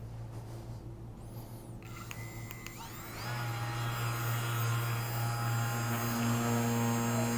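Handheld Rapid Release vibration therapy device running with a steady motor buzz. About two to three seconds in its pitch rises as it speeds up, and it then runs louder and steady.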